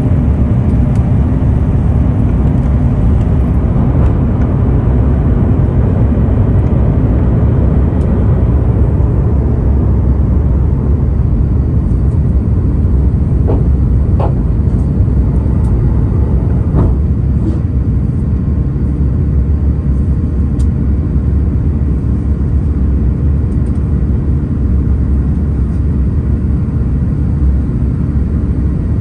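Airbus A350 at takeoff power heard from inside the cabin: its Rolls-Royce Trent XWB engines and the airflow make a loud, steady low rumble as the jet leaves the runway and climbs. The higher hiss thins out after several seconds, and a few faint knocks come around the middle.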